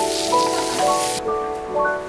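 Pork and kimchi sizzling on a hot stone griddle for about the first second, over a piano melody that climbs note by note, roughly two notes a second.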